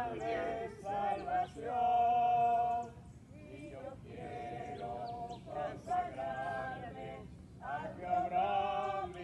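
A group of voices singing a hymn unaccompanied, holding long notes with short breaks between phrases.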